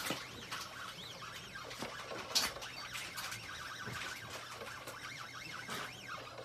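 Stepper motors of a CNC 3018 laser engraver driving the laser head back and forth, whining in short rising and falling tones, with scattered ticks and one sharper click about two and a half seconds in.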